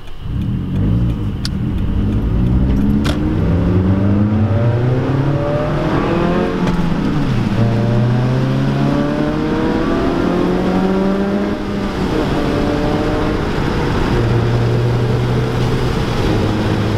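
Scion tC's four-cylinder engine running with its axle-back exhaust removed, so the exhaust dumps open under the car, heard from inside the cabin while accelerating. The engine note climbs in pitch, dips and climbs again around the middle, then drops and holds steady near the end. It is louder than stock and has a raspy tone that the driver likens to a Honda Civic.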